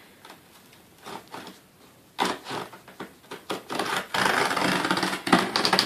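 Cardboard box and packaging being handled and pulled open, starting with a few light clicks and taps, then scraping and rustling from about two seconds in that grows louder and denser near the end.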